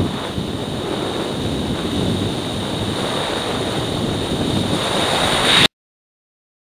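Wind rushing over a bicycle-mounted camera's microphone while riding: a steady rough noise with a faint high whine underneath, cutting off suddenly near the end.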